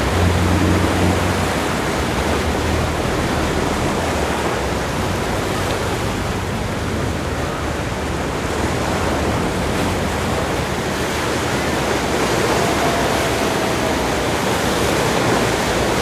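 Steady rush of ocean surf, with a brief low rumble in the first second or two.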